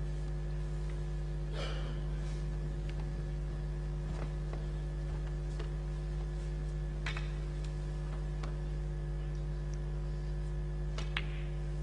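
Steady low hum under near-quiet snooker play, with a few faint knocks. About eleven seconds in comes a sharp click: a snooker cue striking the cue ball for the next red.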